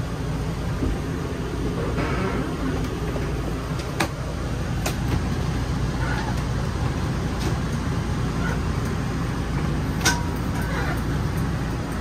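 Hydraulic slide-out system of a fifth-wheel camper running: a steady low pump hum as four slide-outs extend together, with a few sharp clanks from the window blinds, the loudest about four seconds in and about ten seconds in.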